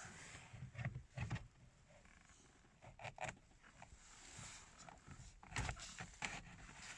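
Faint, scattered clicks and knocks of car interior parts being handled and fitted back on a steering column, a few of them sharper than the rest.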